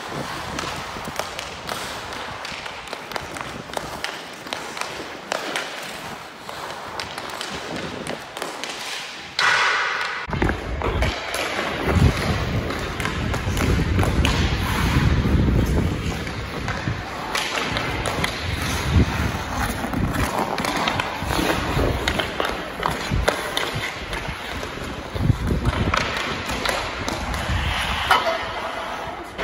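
Ice skate blades scraping and carving on rink ice, with sharp knocks of a hockey stick on the puck and pucks striking. From about ten seconds in, a low rumbling noise runs under it.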